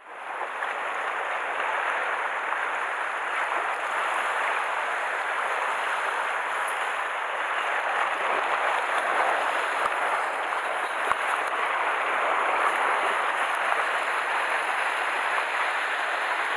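Steady wash of sea water against shore rocks: a continuous hiss of small waves.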